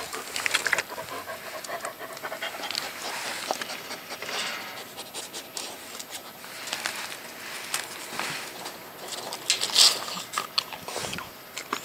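Dogs panting close up at a gate, with scattered clicks and scuffs throughout and a louder breathy burst near the end.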